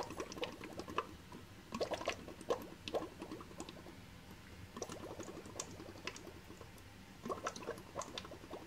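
Air blown through a drinking straw into the water of a small Sea Monkey tank, bubbling in several bursts of quick pops to aerate the water.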